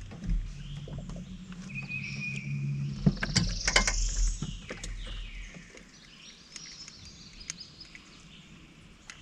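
Handling noises in a small fishing boat as a just-landed bream is taken off the hook: scattered clicks and knocks, busiest about three to four seconds in. A low steady hum runs under the first half and then fades.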